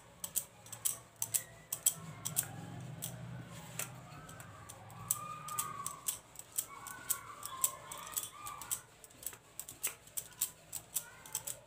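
Pastry dough being rolled out with a rolling pin on a floured worktop: a run of quick, irregular light clicks and clacks.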